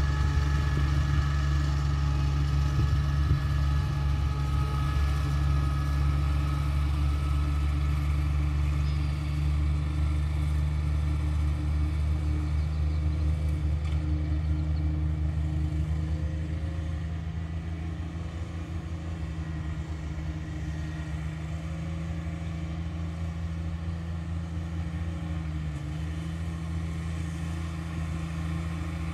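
Riding lawn mower engine running steadily under load, getting somewhat quieter about halfway through.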